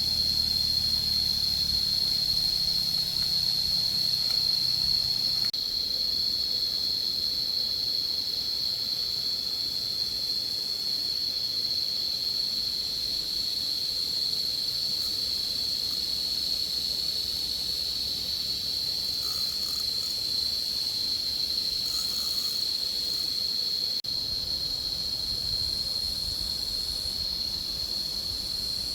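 Steady, unbroken high-pitched drone of insects calling. A low hum underneath stops about five seconds in and comes back near the end.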